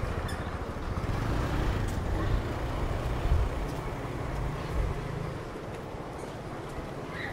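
A motorbike engine running close by, with a steady low rumble and street noise, and voices faint in the background.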